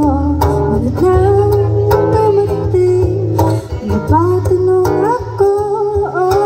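A woman singing into a microphone over her own strummed acoustic guitar, amplified through a PA, holding long notes.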